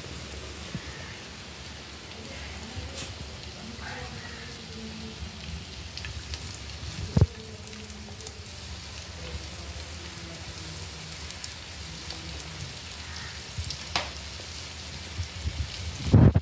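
Fish curry simmering in a clay pot, a steady bubbling hiss, with a few sharp clicks and a louder clatter near the end as pieces of fish are slid into the pot.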